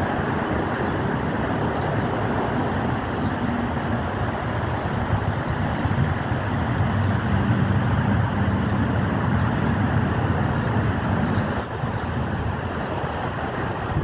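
Steady low rumble of a passing vehicle, with an engine hum that grows louder through the middle and falls away sharply about twelve seconds in.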